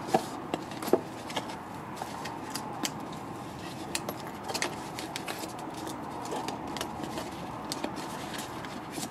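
Cardboard packaging handled by hands while a watch with a rubber strap is worked out of its box insert: irregular clicks, taps and rustles, the sharpest near the start and about a second in.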